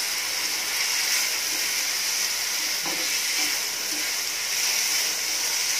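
Chopped onion and tomato frying in hot oil in a steel kadhai, a steady sizzle, while a spoon stirs them.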